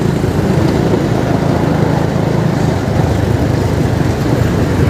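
Steady engine and road noise of a moving vehicle, a low, even hum.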